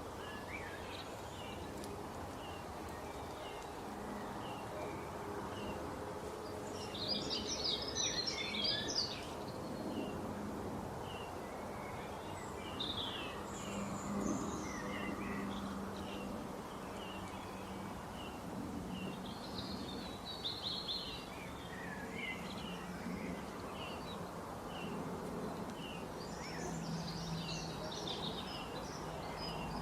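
Small birds chirping over steady background noise, with short high chirps repeating about twice a second and several louder bursts of rapid twittering.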